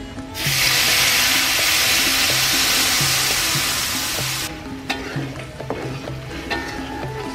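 Blended shallot-and-garlic spice paste poured into hot oil in a wok: a loud sizzle starting about half a second in and dying down after about four seconds. Then a metal ladle stirring the frying paste, clicking and scraping against the wok over a quieter sizzle.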